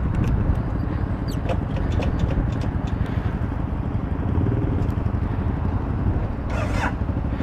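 Motorcycle engine idling with a steady, lumpy low beat.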